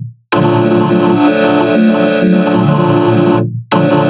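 Heavily distorted logo jingle: a synth-like music sting with many held tones sounding at once. It starts after a short silence at the very start, cuts off at about three and a half seconds, and a new, equally distorted sting starts right after.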